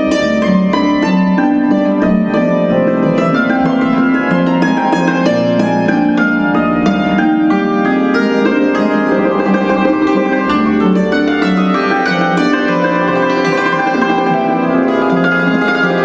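Harp music: a steady flow of plucked notes over held low bass notes, in a slow romantic piece.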